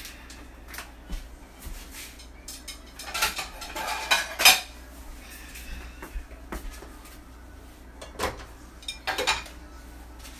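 Kitchen dishes clattering: ceramic plates and utensils knocking together in a busy spell about three to four and a half seconds in. Near the end come a few sharper knocks as a glass pan lid goes onto a skillet and a ceramic plate is set down on the stove grate.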